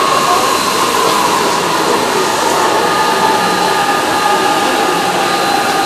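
JR East E233-series electric train pulling into the platform as it arrives: a steady rush of wheels on rail, with a whine whose pitch slowly falls as the train slows.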